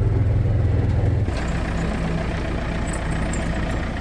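A vehicle engine running steadily. Its low note shifts to a different pitch about a second in, with more rattle and noise above it from then on.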